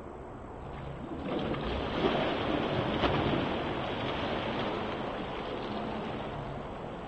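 Water splashing as a swimmer pushes off the pool wall in a backstroke start and kicks away on his back. The splashing builds about a second in, peaks with one sharp slap, then slowly fades.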